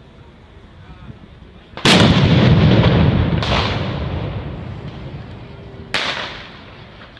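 A large firework bomb explodes on the ground about two seconds in: one very loud blast that rumbles and echoes away over several seconds. A sharper bang follows about a second and a half later, and another near the end.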